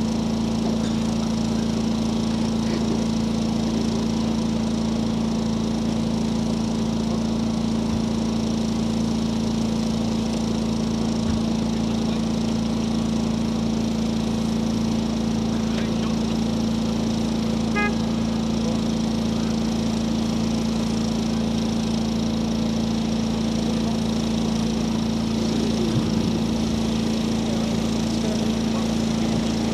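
An engine running steadily at an even speed, a constant low hum that does not change.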